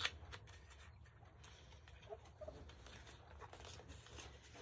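Faint handling of small cosmetic items and their packaging: a sharp click right at the start, then light scattered clicks and rustles with a couple of brief squeaks, over a low steady hum.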